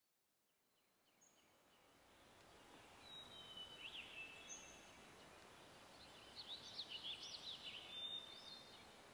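Faint ambience of soft hiss fading in, with scattered bird chirps and short whistles, busiest about three to four seconds in and again in the second half.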